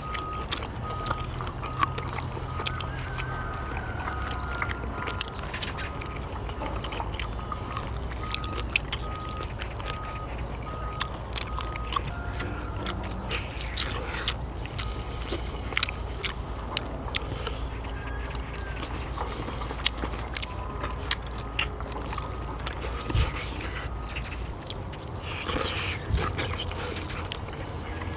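Eating sounds: sharp clicks of utensils on dishes and chewing. Under them runs a steady low vehicle-engine rumble that stops a few seconds before the end. A reversing-alarm beeper sounds about twice a second for the first twelve seconds or so.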